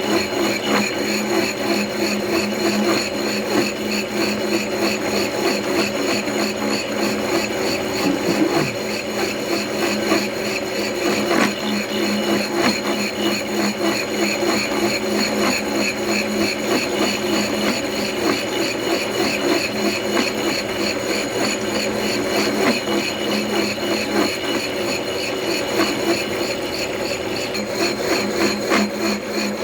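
Milling machine running with its cutter taking a cut in a metal tool holder: a steady motor hum under a fast, even rhythmic chatter of the cutter.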